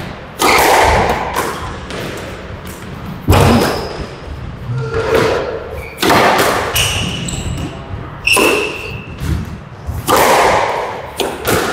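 Squash rally: the ball is struck hard by rackets and smacks the walls about every two to three seconds, each hit echoing in the enclosed court. Short high squeaks of shoes on the court floor come between the shots.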